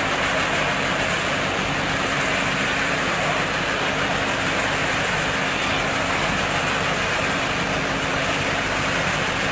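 Stationary baler-wrapper machine running: a steady mechanical din with a constant low hum underneath.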